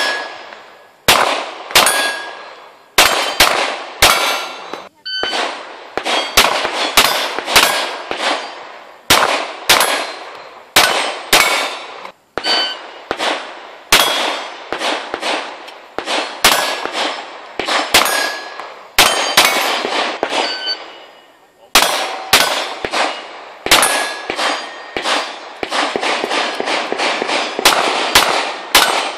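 Pistol shots fired in rapid strings at steel plate targets, each shot followed by the metallic ring of a struck steel plate, with short pauses between strings.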